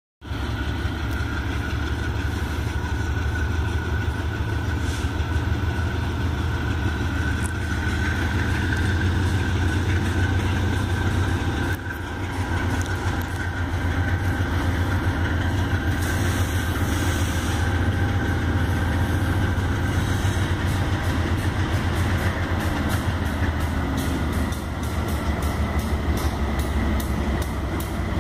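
Diesel freight locomotives approaching under power, a steady low engine rumble.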